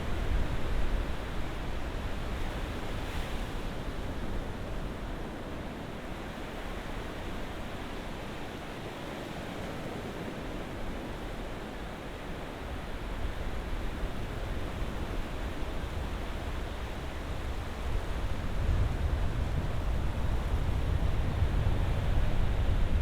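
Ocean surf washing in a steady rush, easing off midway and building louder again over the last few seconds.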